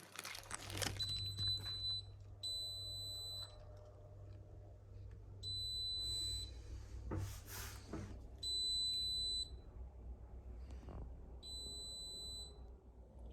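Electronic beeper sounding five steady, high-pitched beeps about a second long, spaced about three seconds apart, over a low steady hum.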